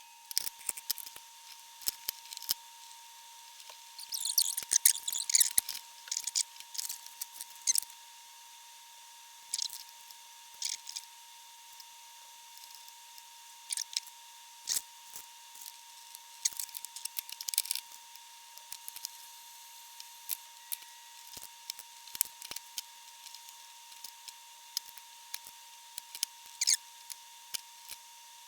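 Small hand tools clicking, tapping and snipping while parts are worked loose on a valve amplifier chassis, irregular sharp clicks that are busiest from about four to eight seconds in. A faint steady tone sits underneath.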